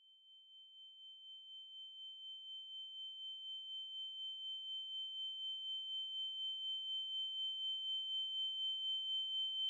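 A steady, high-pitched electronic tone with a fainter lower tone beneath it, part of a horror film's score. It fades in from silence a second or two in and slowly grows louder, pulsing gently about twice a second.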